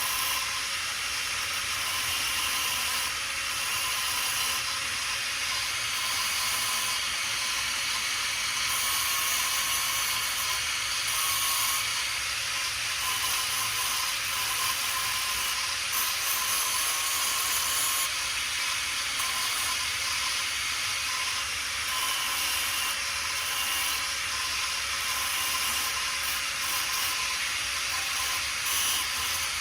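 Electric welding arc crackling and hissing while tack-welding steel, the crackle swelling and easing in stretches over a faint steady hum.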